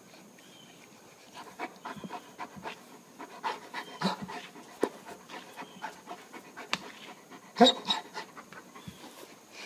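A large dog panting in short, irregular breaths, with a louder burst a little before the end.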